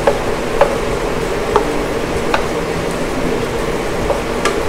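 Marinated chicken simmering in a thick sauce in a nonstick pan, bubbling steadily, while a wooden spatula stirs it, with several light knocks of the spatula against the pan.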